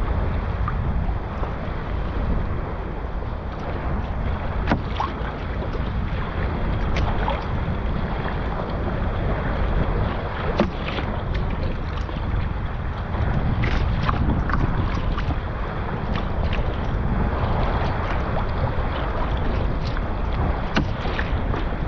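Wind from a force 3–4 breeze buffeting the microphone over water splashing and lapping around a sea kayak under paddle, with scattered short splashes and drips.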